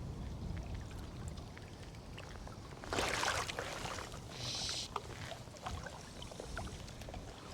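Splashing water about three seconds in, with a second shorter splash or swish about a second later and small scattered ticks, over a steady low rumble of wind on the microphone.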